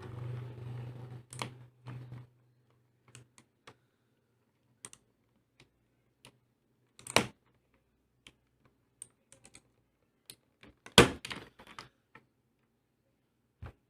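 Sparse, irregular plastic clicks and clacks from handling an Armageddon MKA-3C mechanical keyboard during a switch swap. There is a louder clack about seven seconds in and a loud cluster of clacks around eleven seconds in.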